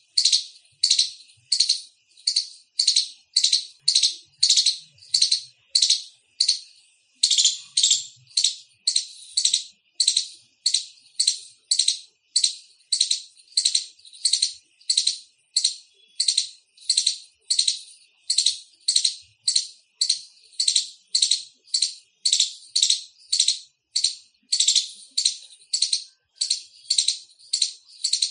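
Indian palm squirrel chirping: short, high, sharp calls repeated in a steady rhythm of about two a second.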